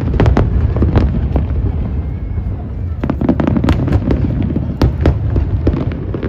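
Aerial fireworks going off in rapid succession: many sharp cracks and pops over a continuous deep rumble of bursting shells.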